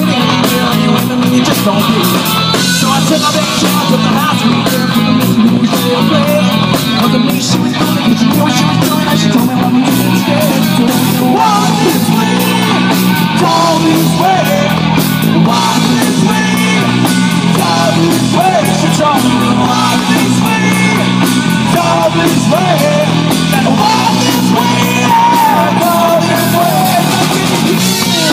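Live rock band playing: drum kit, bass guitar and guitar, with a man singing into a microphone.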